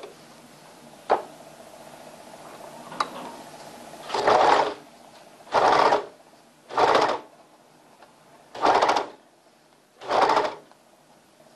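Overlock machine (serger) stitching in short runs, five bursts of under a second each about a second and a half apart, as it overlocks the edge of a trouser hem band. Two sharp clicks come first, in the few seconds before it starts stitching.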